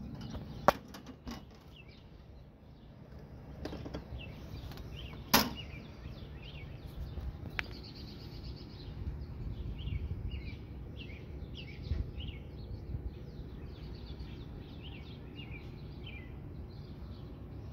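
Birds chirping in quick short calls, busier in the second half, over a steady low rumble, with a few sharp clicks early on, the loudest about five seconds in.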